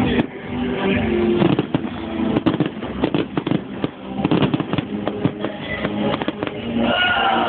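Fireworks show: a rapid run of bangs and crackling from bursting shells, over music playing underneath.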